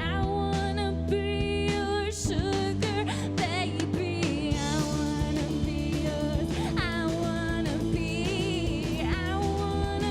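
Live pop-punk band playing a song, with singing over a full band and drums.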